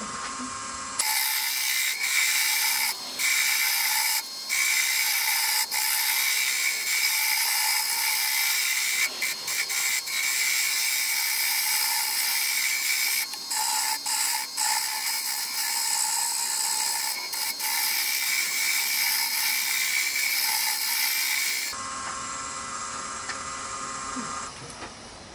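A turning tool cutting a spinning wood spindle on a Nova lathe: a loud, steady, hissing scrape of shavings peeling off, broken by short gaps where the tool lifts. Near the end the cutting stops and only the quieter running lathe is left.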